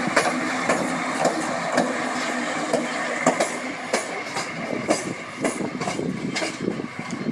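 Passenger train running through a station, its wheels clacking over rail joints and points about twice a second above a steady rolling noise, the clacks spacing out near the end.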